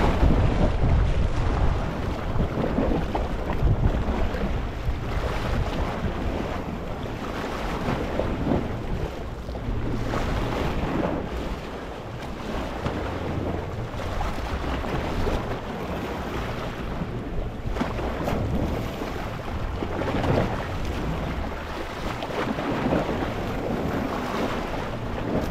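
Gentle sea waves lapping over a rocky shore: a continuous rush of surf that swells and eases every few seconds.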